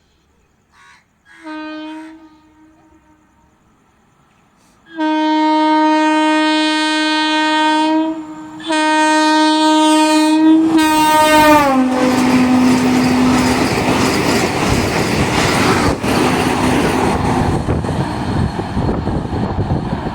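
A passing train sounds its horn: two short toots, then two long blasts whose pitch drops sharply as it goes by. The train then rushes past with the clatter of wheels on rail.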